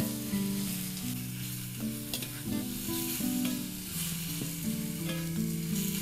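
Meat frying in rawon spice paste, sizzling steadily while it is stirred, with a few sharp knocks of the spatula on the pan. Background music with held notes plays underneath.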